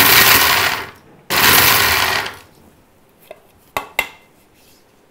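Small Indian mixer-grinder (mixie) run in two short pulses of about a second each, grinding dry cashew nuts to powder; it is pulsed rather than run long so the cashews don't turn sticky. Near the end, a few light clinks as the lid is lifted off the steel jar.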